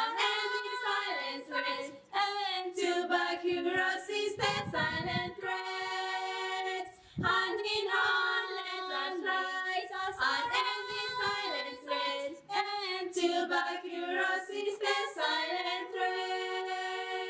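A small group of girls singing a cappella, with no instruments, in phrases of held notes and short breaks between them.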